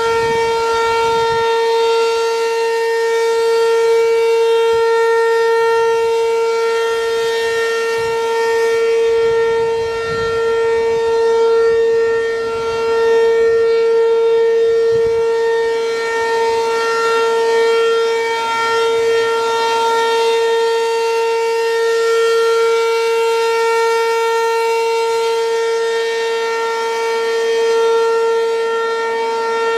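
American Signal RM-127 outdoor warning siren sounding its steady alert signal: one loud, unwavering tone that swells and fades a little in level.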